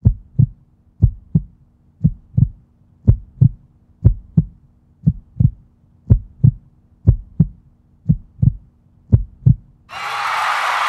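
Heartbeat sound effect: slow paired low thumps, lub-dub, about once a second, ten beats in all, over a faint steady hum.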